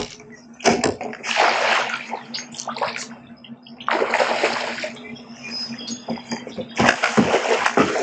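Water splashing in several separate bursts, each about a second long, with a few sharp knocks, over a faint steady low hum.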